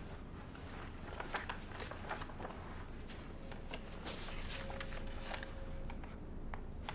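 Sheets of paper rustling in a file folder as pages are leafed through, in soft, scattered rustles at irregular times.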